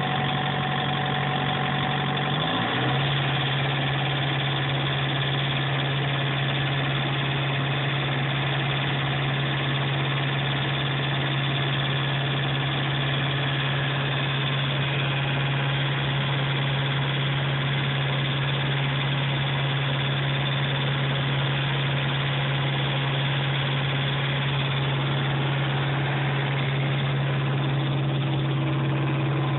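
Diesel engine of a 1999 Thermo King SB-III SR+ Whisper Edition trailer reefer unit running steadily; its note steps up slightly about two and a half seconds in, then holds.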